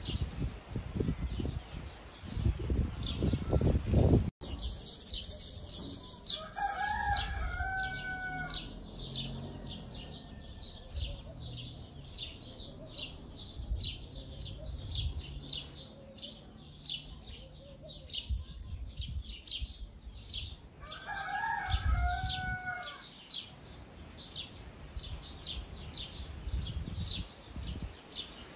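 A rooster crowing twice, about fifteen seconds apart, over a steady rapid high chirping of about three chirps a second. Dull low thumps and rumbles come and go, loudest near the start.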